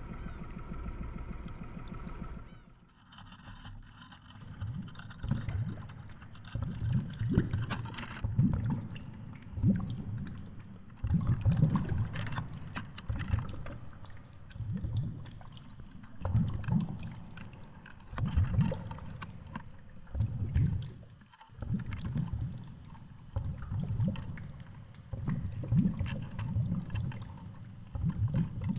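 Muffled sound picked up by a GoPro in its underwater housing at about 60 m: low whooshing surges of water every second or two, with scattered faint clicks. In the first two seconds, before the cut underwater, a steady hum.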